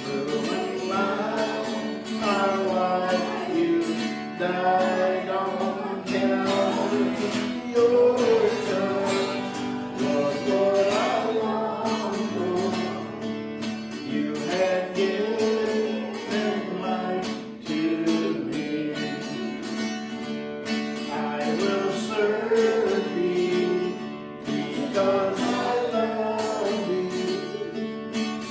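Worship song sung to a strummed acoustic guitar, the melody carried by a voice over steady chords.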